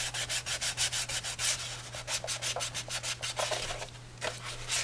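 Hand sanding of Bondo body filler on a plastic motorcycle side cover of a 1972 Honda CB175, using a small sanding block. It is a fast, rhythmic back-and-forth rasp of about six strokes a second, with a brief pause about four seconds in. This is the final smoothing of the filler before primer sealer.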